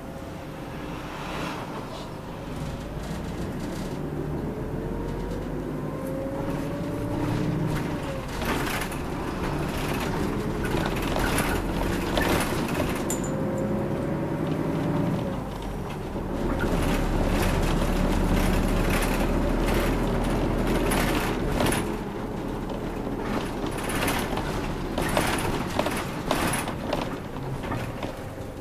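Inside a city route bus under way: the engine rumbles and its whine rises in pitch twice as the bus accelerates, each time dropping off abruptly as it shifts gear, with rattles and clicks from the cabin fittings.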